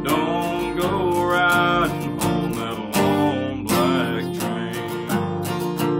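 Acoustic guitar strummed in a steady rhythm, chords ringing between strokes.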